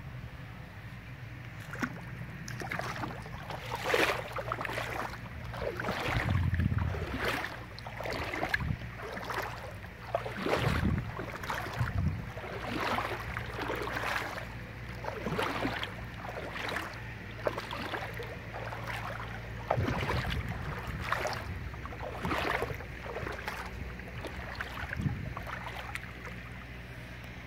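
Footsteps wading through shallow river water over a sandy bottom, an irregular splash one or two times a second.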